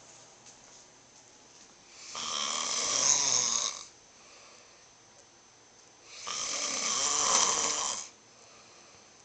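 A man snoring: two long snores about four seconds apart, each growing louder and then stopping sharply, with quiet pauses between them.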